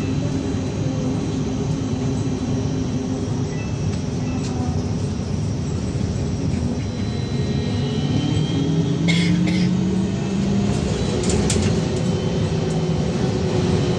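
Interior of a VMZ-5298.01 trolleybus under way: steady road and running noise, with the electric traction drive's whine rising in pitch as it pulls harder from about eight seconds in. A few sharp clicks or rattles come near the middle and again a couple of seconds later.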